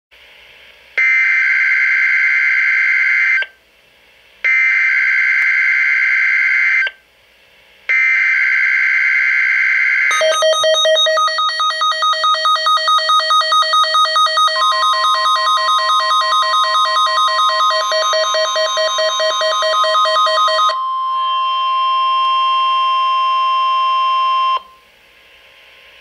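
NOAA Weather Radio emergency alert test tones: three screechy digital SAME header bursts of about two and a half seconds each, then the receiver's alarm beeping rapidly about three times a second, with the steady single-pitch warning alarm tone coming in partway through and holding on alone until it cuts off near the end.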